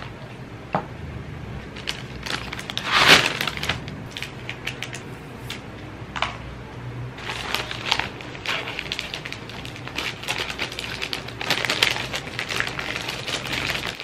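Paper fries bag crinkling and rustling as it is handled and folded shut, in irregular crackles with the loudest crinkle about three seconds in and another dense stretch near the end.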